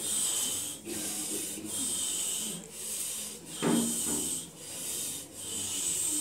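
Loud rasping breaths or hisses, rising and falling about once a second, with a single knock a little after the middle.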